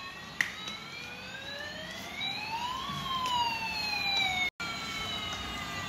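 Battery-operated toy fire truck's electronic siren wailing, its pitch gliding slowly up and then back down. A sharp click about half a second in, and the sound cuts out for an instant past four seconds.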